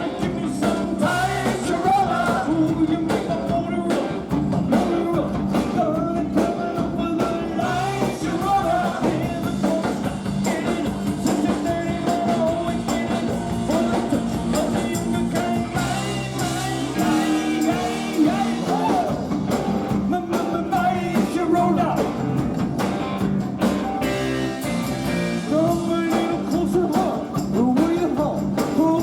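A live rock band playing a rock and roll song with a singer, steady and loud throughout.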